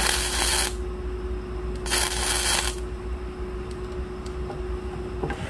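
MIG welding arc crackling in two short bursts, each under a second, as a nut is tack-welded into the bore of a pulley. A steady hum runs underneath.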